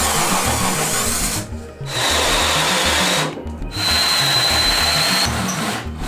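Cordless drill driving a hole saw through plywood, cutting in three runs with short pauses between and a steady high whine from the motor in the later runs. Background music plays underneath.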